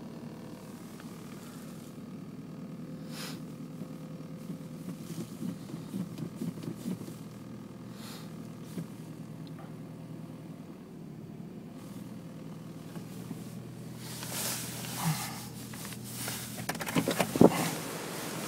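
1998 Audi A4 B5's 1.8-litre petrol four-cylinder idling steadily just above 1000 rpm, a fast idle shortly after a cold start at about −22 °C, heard from inside the cabin. Near the end there is rustling and a loud clunk.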